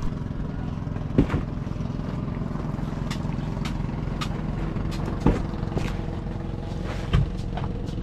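Fishing boat's engine running steadily at a low, even pitch, with a few sharp knocks about 1, 5 and 7 seconds in.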